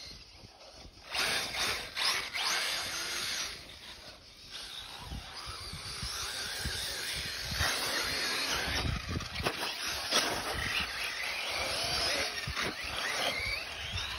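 Mugen Seiki radio-controlled off-road buggy running on a grass track, its motor note rising and falling as it accelerates and slows through the corners and jumps.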